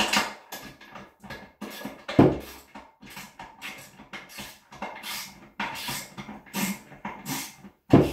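A man straining while he tightens the tank-to-bowl bolts of a toilet with a wrench: a string of short, noisy breaths and grunts, with two louder knocks about two seconds in and just before the end.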